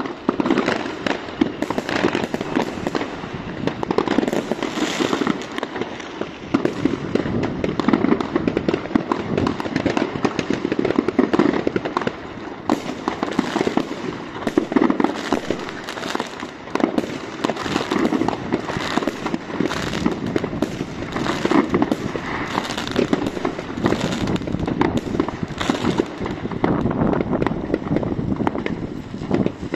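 Many fireworks going off at once: rockets bursting and firecrackers banging in rapid, overlapping succession, with no let-up.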